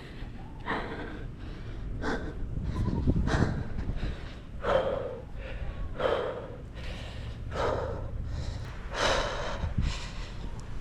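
A climber breathing hard, with about seven loud open-mouthed breaths roughly one every second and a half, over a low rumble of wind on the microphone.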